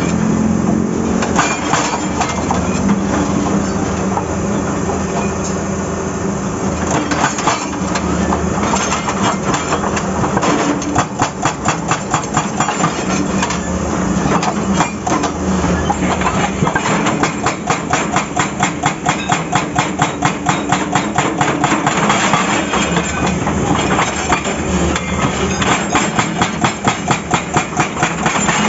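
Excavator-mounted hydraulic breaker hammer pounding asphalt and rock in runs of rapid, evenly spaced blows, several a second, with short pauses between runs, over the excavator's diesel engine running steadily.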